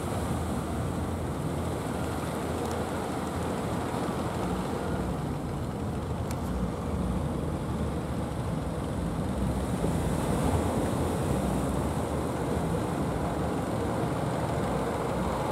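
Steady rush of surf and wind at a river mouth, with the low drone of fishing boats' engines underneath.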